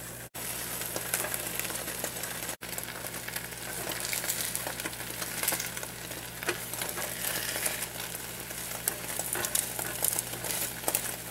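Beaten eggs sizzling and crackling as an omelet fries in a pan, with a silicone spatula being worked around the pan's edge to loosen it.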